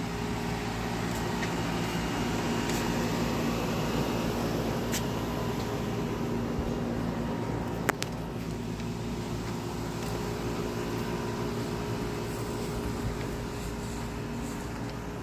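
Air conditioner running with a steady hum of several low tones. A single sharp click about eight seconds in.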